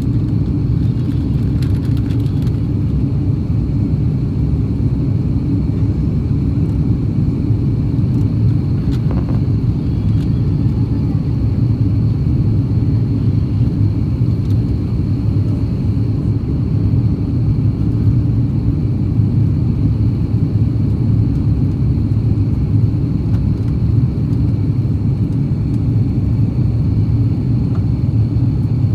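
Steady low rumble of an Airbus A340-600's four Rolls-Royce Trent 500 engines and rushing air, heard from inside the passenger cabin as the jet climbs after take-off, with a faint steady high whine over it.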